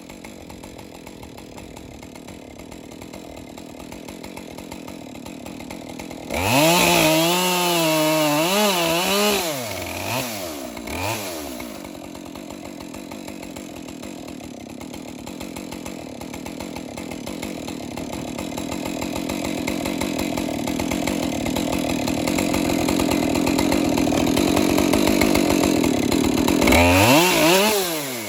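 Chainsaw mounted as a chop saw, idling and then revved to full throttle about six seconds in, its pitch wavering for a few seconds before dropping back. A long stretch of running follows that grows steadily louder, and near the end it revs up once more and falls away.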